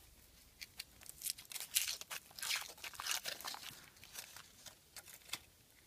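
Foil wrapper crinkling and tearing as it is peeled off a chocolate surprise egg: a run of quick, crisp crackles that starts a little under a second in and goes on until near the end.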